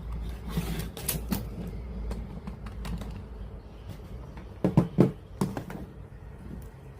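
A string of irregular mechanical clicks and knocks from handling the radio cassette player under repair, with two louder knocks close together about five seconds in.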